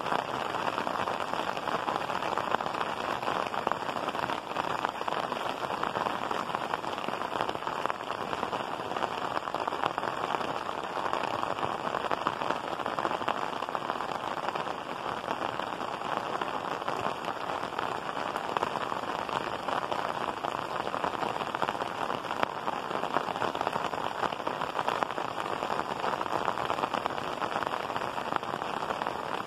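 Heavy rain pouring down steadily, an even, dense hiss that does not let up.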